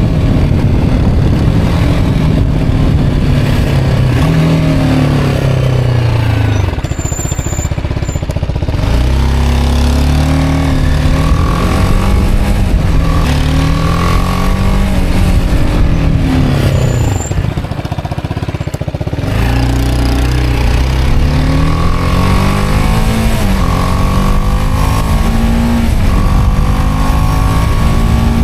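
BMW G310R's single-cylinder engine accelerating up through the gears: the pitch climbs and drops back at each upshift. It eases off twice, about a quarter and two-thirds of the way in, then pulls up through the gears again.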